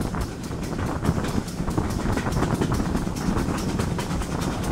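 Steam locomotive running at speed, heard from the footplate, with a quick, even rhythmic beat of about five a second over a steady rumble and wind on the microphone.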